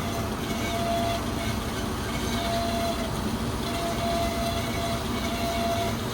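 Amada HA250W automatic horizontal band saw running in automatic mode: a steady mechanical noise, with a thin tone that fades in and out every second or two.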